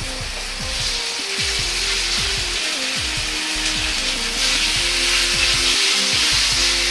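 Sliced pork sizzling in hot oil in a Chinese wok as the slices are laid in one at a time; the sizzle gets louder about four seconds in.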